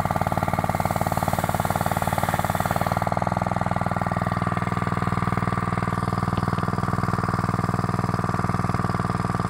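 Lifan petrol-engine water pump running steadily while it pumps water through a hose. Its frost-cracked pump bell is held together by a temporary silicone and fibreglass patch. The engine note shifts slightly about three seconds in.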